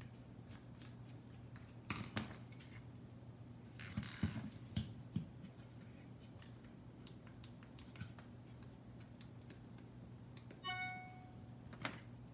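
Faint scattered clicks and taps of a small screwdriver and plastic parts being handled inside an opened RC radio transmitter, over a steady low hum. A brief pitched chirp sounds near the end, followed by a sharper click.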